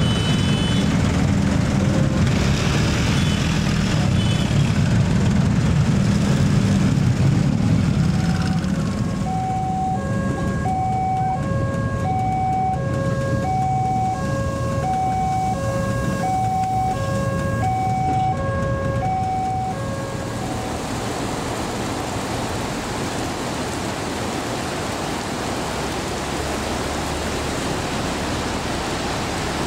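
Idling and moving road traffic at a railway level crossing. About nine seconds in, the crossing's electronic warning signal starts: two alternating tones repeating steadily, with a commuter train passing. The signal stops about twenty seconds in and gives way to the steady hiss of heavy rain.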